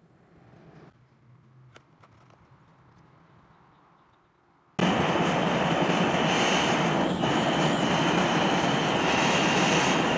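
Propane torch burning with a steady rushing noise as it heats a steel disc held in tongs. It starts abruptly about halfway through, after a faint, near-quiet stretch.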